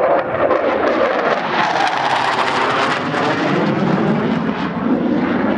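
Twin RD-33 turbofan engines of a MiG-29 fighter in a display pass: loud jet noise with a rough crackle, its pitch sliding lower over the second half as the jet goes by.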